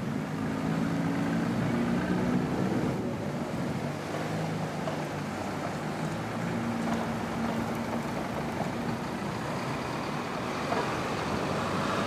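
City street traffic: cars and vans driving past close by, with a low engine hum that comes up in the first few seconds and again around the middle as vehicles pass.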